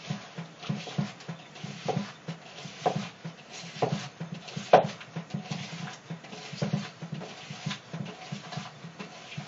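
Hands squeezing and kneading salted cut cucumbers in a plastic bowl on a wooden cutting board: an uneven run of soft knocks, one or two a second, with sharper squelching knocks about once a second in the middle.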